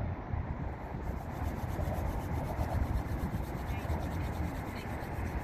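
Wind buffeting the microphone: a steady, low rushing noise.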